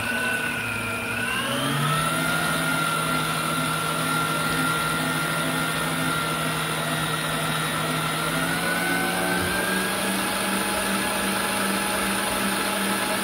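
Electric stand mixer running, its motor whine rising as it speeds up over the first two seconds and then holding steady while it creams butter, sugar and vanilla. The running mixer is shaking the metal table under it.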